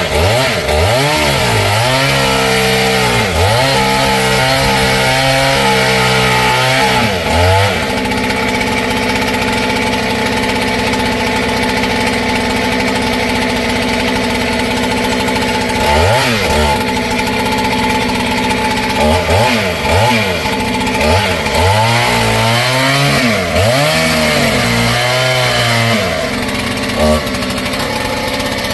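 Kit-built clone two-stroke chainsaw running, its engine revved up and down repeatedly for the first several seconds and again from about 16 to 27 seconds, held at a steady speed in between.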